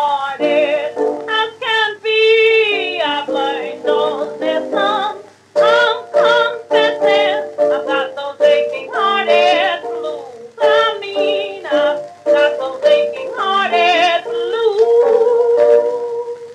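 An early 1920s acoustic 78 rpm blues record playing: a woman sings with vibrato over piano accompaniment. The song ends on a long held note that fades out near the end.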